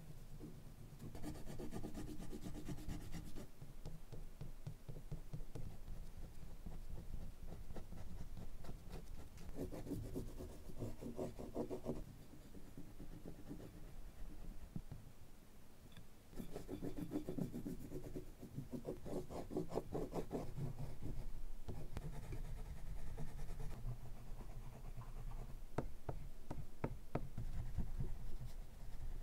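Oil pastel sticks rubbing and scratching on paper as colour is laid in with quick back-and-forth strokes, coming in several spells with quieter stretches between.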